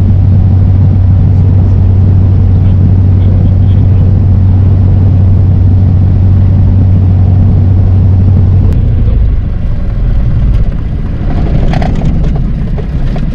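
Piper PA-28 light aircraft's piston engine and propeller running at low power on the ground, heard from inside the cabin as a loud, steady drone. About nine seconds in the even drone changes and roughens, with a few clicks, and the sound drops away sharply at the very end.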